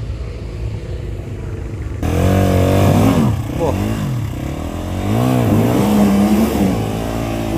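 Dirt bike engine running low and steady, then about two seconds in revved hard in repeated rising and falling bursts as the bike is worked up a steep muddy climb.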